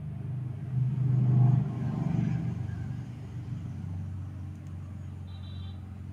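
Low engine rumble of a motor vehicle in the background, loudest about one to two seconds in, then settling into a steadier low hum. A brief high tone sounds near the end.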